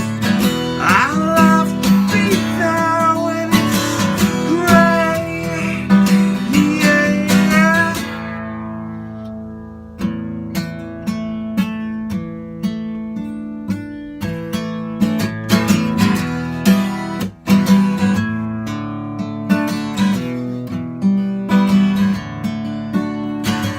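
Acoustic guitar music: strummed chords with a lead line of bent notes over the first several seconds. The playing thins out about eight seconds in and the strumming picks up again about ten seconds in.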